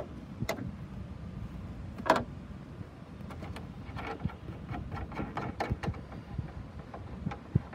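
Light, irregular metallic clicks and taps of a 13 mm wrench being fitted to and worked on the nuts of a Ford Bronco hood hinge, with one sharper click about two seconds in, over a low background rumble.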